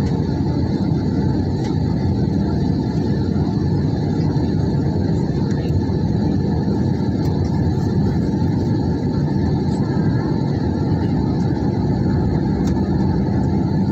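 Airliner cabin noise in flight: the jet engines and airflow make an even, steady low rumble, with a faint steady high whine above it.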